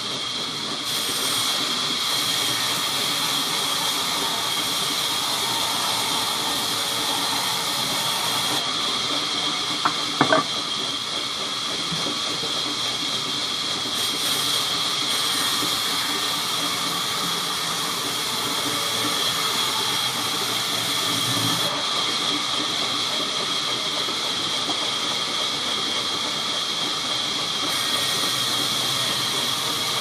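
Vertical band saw cutting lengthwise through a log: a steady hiss with a high, even whine from the blade running through the wood. A couple of sharp knocks come about ten seconds in.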